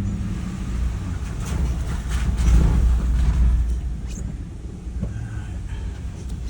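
Low, steady rumble of a vehicle being driven, swelling for a second or so near the middle, with a few faint knocks.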